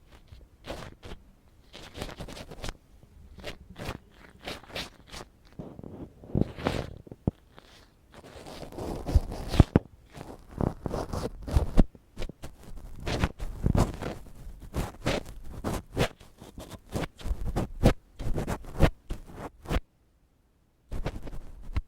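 Ear pick scratching and scraping close on the microphone, in irregular strokes of varying loudness. The sound cuts out completely for about a second near the end.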